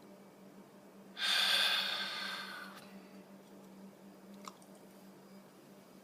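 A person drawing a loud rush of air in through the mouth, once, for about a second and a half, starting sharply and fading away.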